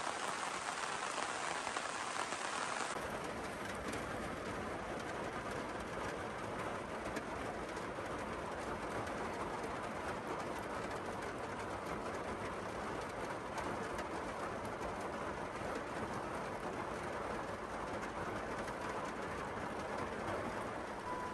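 Heavy rain falling steadily in a downpour, an even hiss of drops with no let-up. About three seconds in, the sound changes to a duller, lower wash.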